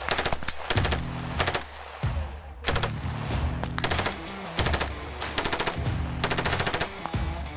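Repeated bursts of fully automatic gunfire, each a short string of rapid shots, over background music.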